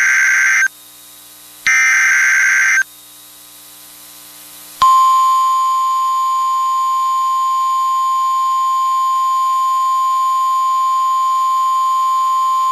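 NOAA Weather Radio EAS alert signalling: the last two SAME digital header data bursts, each about a second long and a second apart. After a pause of about two seconds, the steady 1050 Hz weather radio warning alarm tone starts about five seconds in and holds, the signal that a warning (here a tornado warning) follows.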